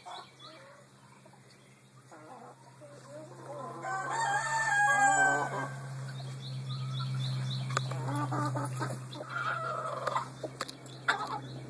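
Chickens clucking, with one long drawn-out call about four seconds in, the loudest sound, and shorter calls after it; a few sharp clicks near the end.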